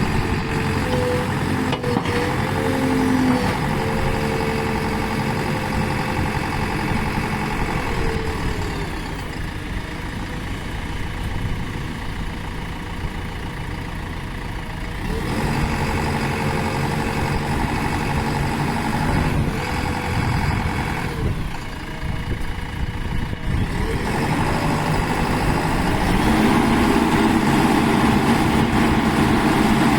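JCB 3DX Plus backhoe loader's diesel engine running, its speed dropping and climbing again several times. It runs louder and higher over the last few seconds.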